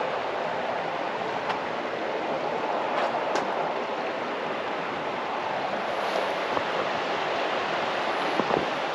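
Steady rushing outdoor noise with a few faint ticks.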